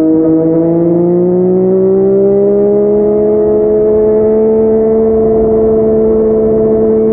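Yamaha MT-09's inline three-cylinder engine through a Yoshimura R55 slip-on exhaust, pitch climbing gradually over the first few seconds as it gathers speed, then running at a steady pitch.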